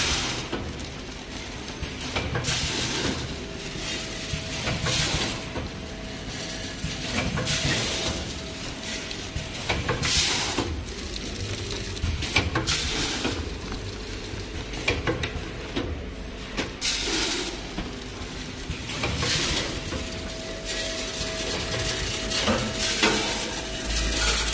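Vertical form-fill-seal packing machine with a four-head electronic scale weigher running: weighed batches of sunflower seeds rattle down through the chute into the bags about every two to three seconds, over a faint steady machine tone.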